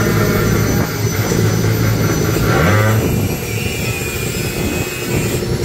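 Racing motorcycle engine running loudly, with a short rev rising in pitch about two and a half seconds in.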